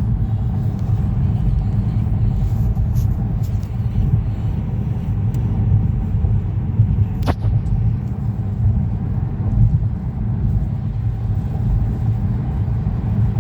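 Steady low rumble of a car driving on the road, heard from inside the cabin. A single brief sharp tick comes about halfway through.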